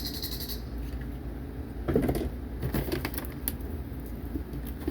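Battery-powered sound effect from a Soldier Force toy Jeep, played through its small built-in speaker, with a few plastic clicks from handling the toy.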